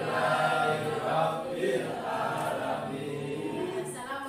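A class of students reciting a prayer together in unison, in a chanted sing-song.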